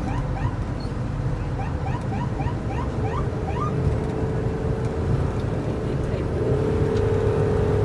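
Moving ambulance heard from inside its cabin: a steady low engine and road rumble. A short rising siren chirp repeats about three times a second through the first half, then a steady siren tone takes over and grows louder near the end.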